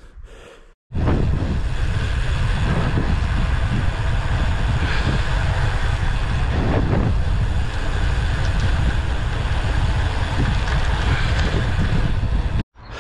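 Wind buffeting on a bike-mounted camera's microphone as a road bike rides downhill at speed, a loud steady rush. It starts abruptly about a second in and cuts off just before the end.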